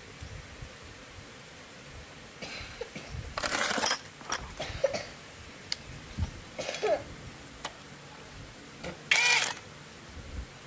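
A few short metal clatters and scrapes as a socket, extension and power driver are handled and set onto the flywheel nut of a small trimmer engine. The loudest, about nine seconds in, rings briefly.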